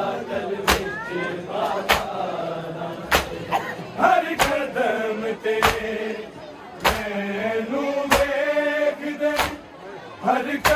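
Shia matam: mourners striking their chests in unison, one sharp slap about every second and a quarter, while voices chant a nauha (mourning lament) over the beat.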